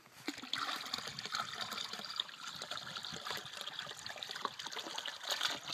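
Water pouring from a plastic bucket into a pond, a steady splashing trickle with bubbling at the surface, starting about a third of a second in; small creek chubs are being tipped out with the water.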